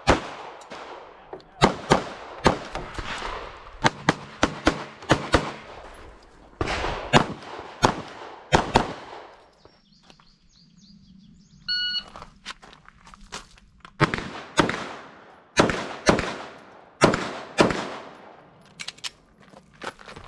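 Pistol shots from a Glock 43X fitted with a compensator, fired in quick strings, each crack trailing off in an echo. After a pause around ten seconds there is a short beep near twelve seconds, then firing resumes.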